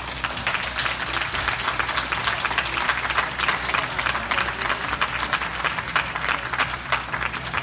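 Spectators applauding, a dense run of hand claps that starts suddenly and holds steady.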